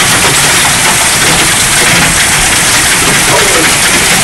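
Heavy hail pelting down, a loud, steady, dense roar of impacts.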